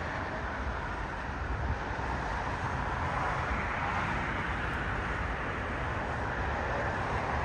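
Steady rumble and hiss of jet engines heard across an airfield, from a twin-engine widebody airliner taxiing, growing slightly louder later on.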